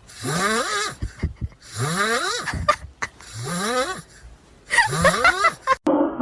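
Four breathy vocal sounds from an animal, each sliding up in pitch and lasting just under a second, repeated about every second and a half.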